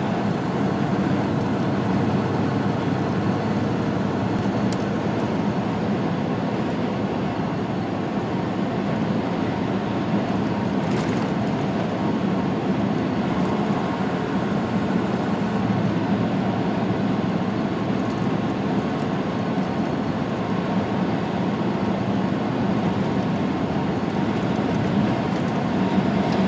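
Semi truck cruising down a highway, heard from inside the cab: a steady diesel engine drone mixed with tyre and road noise, with no change in pace.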